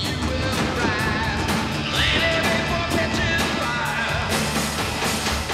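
Film soundtrack music with singing, mixed over the crackle and pops of a fireworks display.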